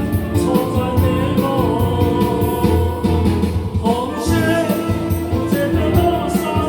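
A singer's voice over instrumental accompaniment with a steady drum beat, amplified through a sound system.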